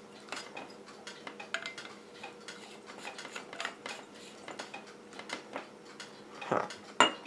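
Light clicking and scraping of a bulb's metal screw base being turned into a black plastic lamp socket, with a louder sharp click near the end.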